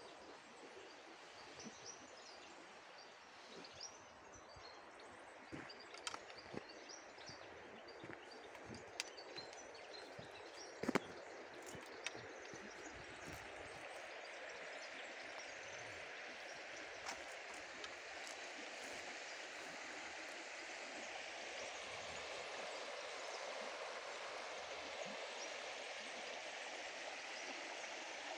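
Shallow stream running over stones, a steady rushing that swells in about halfway through and holds. Before it, small birds chirp with scattered ticks from footsteps on the path, and a sharp click about eleven seconds in.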